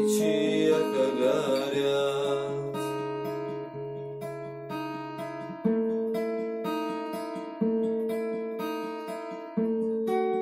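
Acoustic guitar playing ringing chords, with a new chord struck about every two seconds and each one left to ring and fade.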